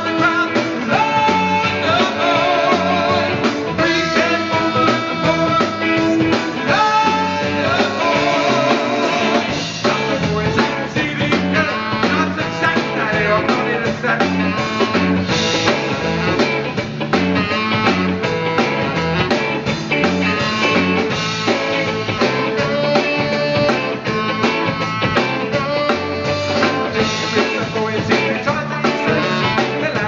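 Live band playing an upbeat number: drum kit, electric bass guitar and saxophone, with a lead vocal.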